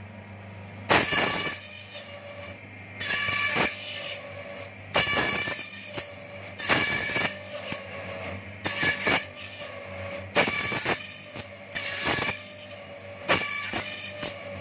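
Bamboo sate-skewer slicer-planer machine running with a steady motor hum, and a loud noisy burst about every second as each bamboo strip is fed through its rollers and planing cutters.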